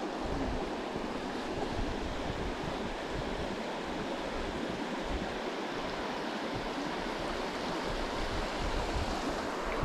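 A river running steadily, with low wind buffeting on the microphone.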